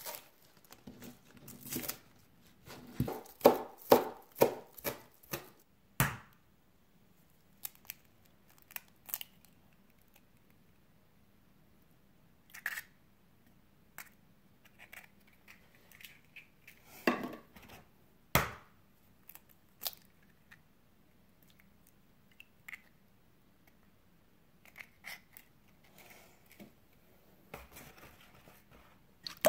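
A cleaver chopping green onions on a plastic cutting board, a quick run of knife strokes during the first six seconds. After that come scattered knocks and taps as eggs are cracked into a glass bowl.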